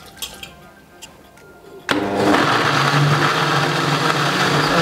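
Electric countertop blender switching on about two seconds in, after a few faint clicks, and running steadily at high speed. It is grinding shallots, chilies and other aromatics with a little water into a thick spice paste.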